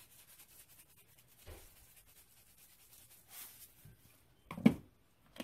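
Spice shaker of Creole seasoning shaken over raw chicken legs in a pot, making a few soft scratchy rattles, with a short sharp knock near the end.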